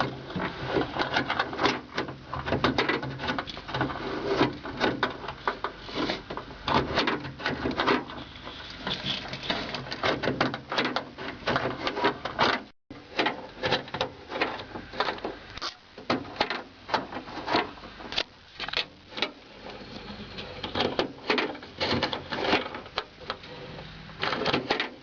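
Door lock mechanism of a 1995 Isuzu pickup being worked, with rapid, irregular clicks and clacks of the latch, rods and plastic linkage. The sound breaks off briefly about halfway through.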